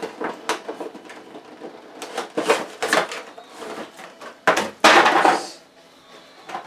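Action-figure packaging being handled: a cardboard window box and its clear plastic blister tray give a run of taps and clicks, then a loud plastic crackle about four and a half seconds in as the tray is pulled free.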